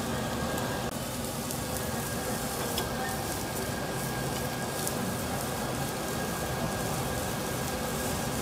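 Seafood (shrimp, squid and scallops) sizzling in small metal pans on a tabletop grill: a steady sizzle with a few scattered small pops.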